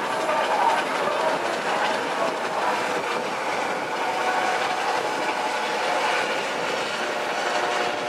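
Helicopter flying past overhead: a steady, rapid rotor beat with a high steady whine over it.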